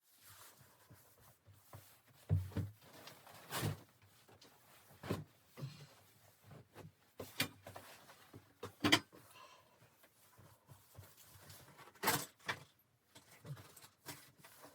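Irregular knocks and clunks, about a dozen over several seconds, with quiet rustling between them. The loudest come about two, nine and twelve seconds in.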